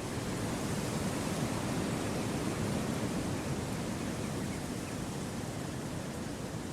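Wind blowing steadily through forest trees: an even, rushing noise that swells slightly and then eases.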